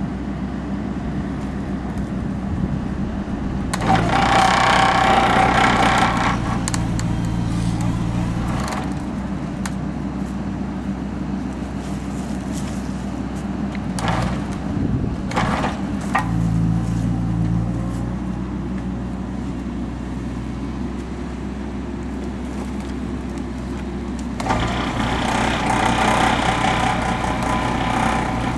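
Excavator engine running steadily with a post-pressing attachment, pushing wooden posts into the ground. It gets louder and harsher twice, briefly about four seconds in and for several seconds near the end, as the head works a post down into the soil.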